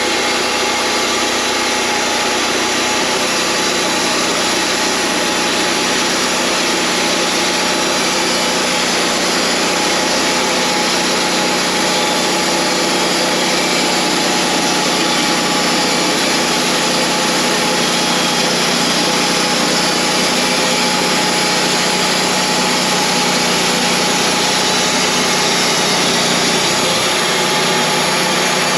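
Wood-Mizer LT40 portable bandsaw sawmill running steadily, its engine and band blade making a continuous loud hum over a dense hiss.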